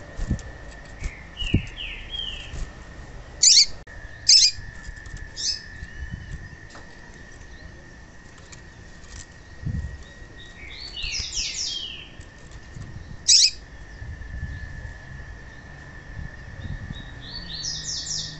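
Female papa-capim seedeater calling: short series of quick descending chirps come several times, with three louder, sharp single calls among them. Soft thumps and flutters come from the bird hopping about its cage.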